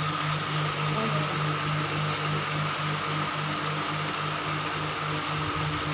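8500B industrial lockstitch sewing machine running on a test after its hook timing was reset, the underbed bevel gears turning: a steady hum that pulses fast and evenly, with a steady high whine above it. The run checks whether the noise caused by slipped hook timing has gone.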